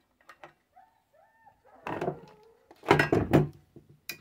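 Handling noise from dismantling a radio transceiver on a workbench: light clicks and knocks of its metal chassis and parts, two short squeaks about a second in, and a louder clatter around three seconds in.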